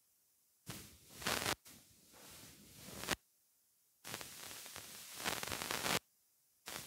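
Rustling and handling noise in three stretches of one to two seconds each, as a plastic container is carried up and set down.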